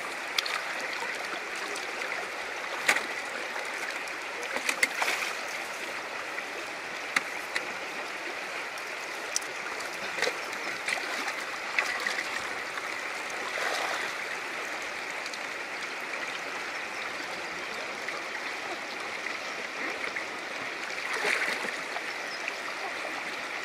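Shallow river current rushing steadily around rocks and wading legs, with scattered short splashes and knocks as boxes are handled in the water.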